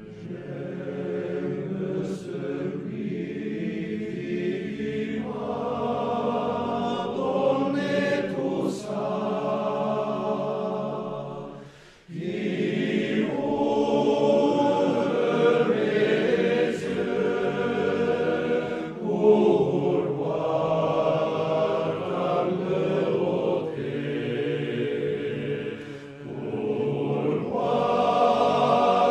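Male alpine choir singing unaccompanied in several-part harmony. It swells from a soft opening, and the phrases break for short breaths about 12 and 26 seconds in.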